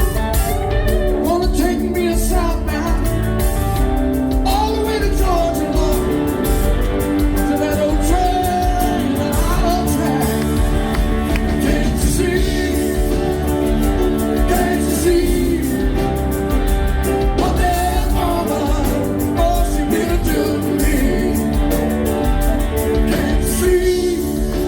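Southern rock band playing live: a melodic lead line wavers over sustained chords, bass and drums, with no words sung.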